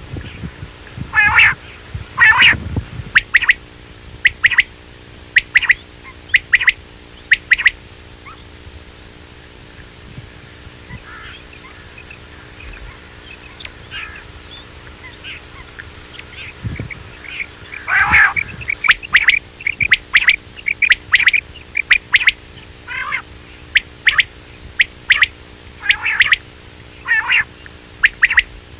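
Quail calling, as played back to lure quail: many short, sharp repeated calls, with louder, harsher calls about a second in and again past the middle, and only a few faint calls in between.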